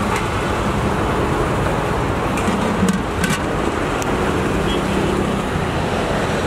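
Steady road-traffic noise, with a few sharp clinks of steel utensils and containers near the middle.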